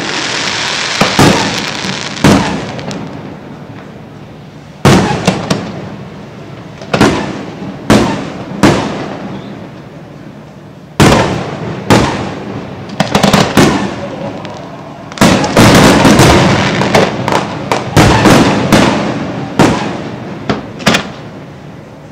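Aerial fireworks shells bursting: sharp bangs every second or two, each trailing off in echoing crackle, with a fizzing crackle at the start and a rapid volley of bursts about two-thirds of the way through.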